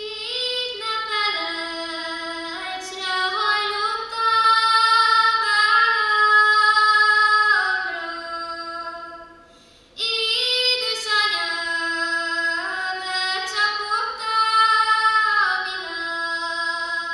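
A young woman singing a Hungarian folk song from Kalotaszeg solo and unaccompanied, in two long phrases with a short breath between them about halfway through.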